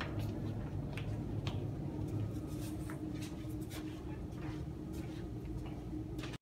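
Footsteps and shuffling in a hallway, heard as scattered short taps over a steady low hum.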